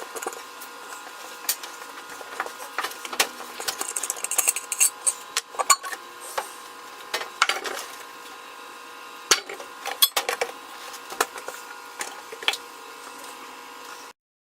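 Hand tools clicking and knocking irregularly against metal, with a few sharper clinks, while working on the exhaust manifold bolts, over a steady high hum.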